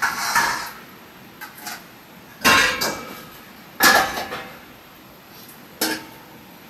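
Metal cooking pots and utensils clanking: four separate knocks, each with a short ring, the loudest two about two and a half and four seconds in.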